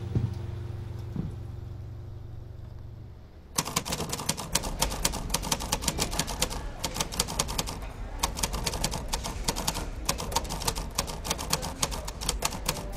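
A red manual typewriter typed fast: a dense, rapid run of key strikes that starts suddenly about three and a half seconds in. Before it, low background music fades away.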